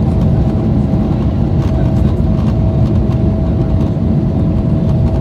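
Jet airliner cabin noise during the climb just after takeoff: a loud, steady low roar of the engines and rushing air, heard from inside the cabin, with a thin steady tone above it.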